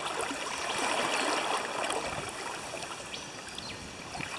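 Flowing river water rippling and trickling, a little louder in the first half.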